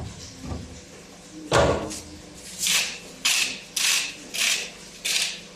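A single dull thump, then a steady run of short rasping scraping strokes, about two a second.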